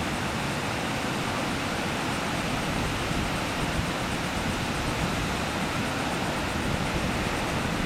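Steady rush of breaking ocean surf, mixed with wind noise.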